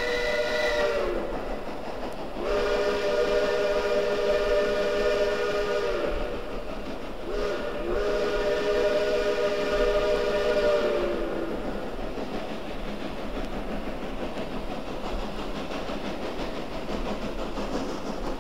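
Chime whistle of a distant 2-8-0 steam locomotive echoing across a valley: the end of one blast, then two long blasts, each sagging in pitch as it closes. After the whistle stops, a steady background noise remains.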